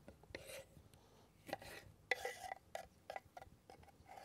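Kitchen knife cutting cherry tomatoes on a wooden cutting board: a series of faint, irregular knocks as the blade meets the board. Near the end the diced tomato is scraped off the board into a ceramic bowl.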